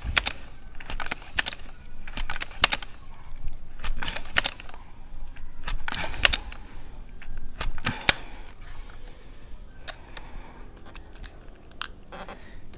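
Multi-pump pneumatic air rifle being pumped: about six strokes of the pump lever, each a pair of sharp mechanical clacks, roughly one every second and a half, then a few fainter clicks near the end.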